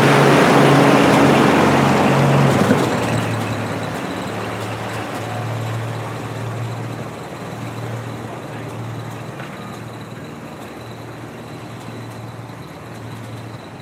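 Tractor engine running close by, then fading away after about three seconds as it moves off. A quieter, steady engine hum carries on behind it.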